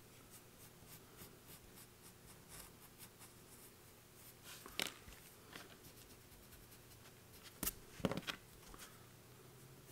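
Pencil drawing on paper: faint scratching strokes, broken by a few light knocks about halfway and again near the end.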